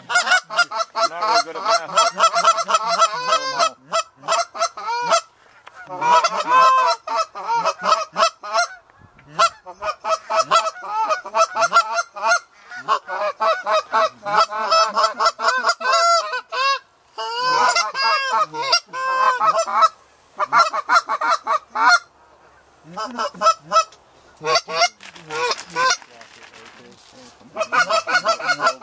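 Canada geese honking and clucking, many calls in quick overlapping runs broken by short pauses every few seconds.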